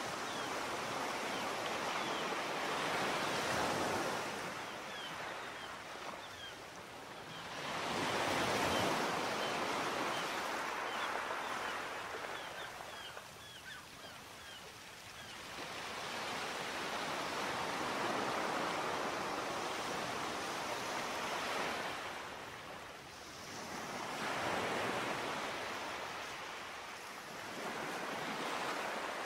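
Sea waves washing onto the shore, the surf swelling and fading about every five seconds.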